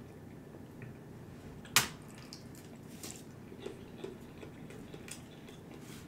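A person quietly chewing a mouthful of stir-fry noodles, with small wet mouth clicks and smacks. One sharper click comes about two seconds in.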